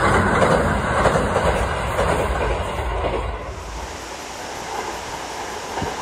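Two-car JR Kyushu KiHa 220 diesel railcar train running across a steel girder bridge, its wheels and diesel engines making a dense rumble. About three and a half seconds in, the sound cuts abruptly to a quieter, more distant rumble.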